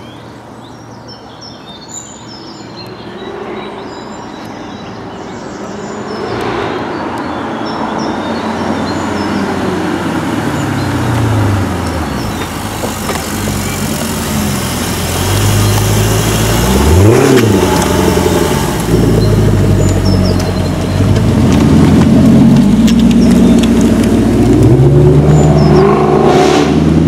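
Jaguar XKR-S supercharged V8 accelerating and revving, its note rising and falling again and again and growing louder as the car approaches, with one sharp rev about two thirds of the way through. Birds chirp faintly near the start.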